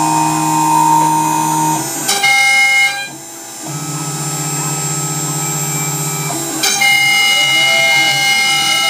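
Laguna CNC router carving a wooden sign: its machine whine holds steady tones that jump to a new pitch every second or few as the head changes moves, with rising-and-falling tones near the end as it sweeps curves.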